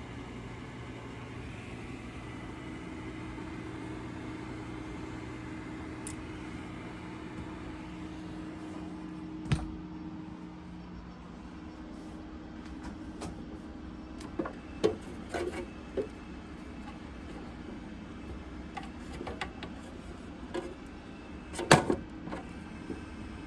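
Creality CR-10 3D printer running, its stepper motors humming in steady tones that change pitch now and then. Several sharp clicks and knocks stand out over it, the loudest about three-quarters of the way in.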